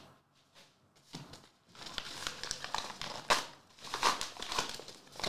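Paper and plastic packaging crinkling and tearing in irregular rustles as a trading card is unwrapped by hand. It starts about two seconds in.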